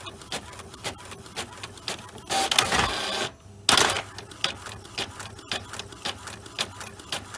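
Epson L4160 inkjet printer printing: a regular ticking of about three clicks a second. About two seconds in, a louder rushing mechanical noise runs for roughly a second, breaks off briefly, and returns in a short burst before the ticking resumes.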